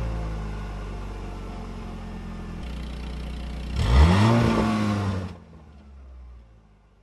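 Engine-like sound effect for a logo intro: a steady droning engine sound that slowly weakens, then a louder rev about four seconds in whose pitch rises and falls. It cuts off abruptly and leaves a short fading tail.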